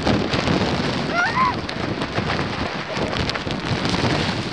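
Hurricane wind and rain making a steady, dense roar on the microphone, with a brief high gliding tone about a second in.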